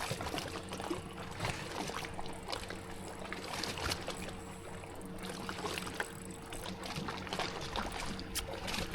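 Steady electric hum of a bass boat's trolling motor over water lapping at the hull, with scattered small ticks.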